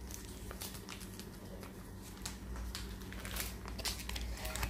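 Faint crinkling and scattered light clicks of a Whiskas cat-food foil pouch being handled and emptied onto a plate, over a steady low hum.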